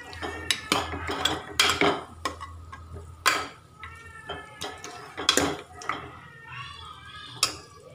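Steel spoon stirring mutton trotters and onions in a pressure cooker pot, knocking and scraping against the metal at an irregular pace, with a light sizzle of the sauté underneath.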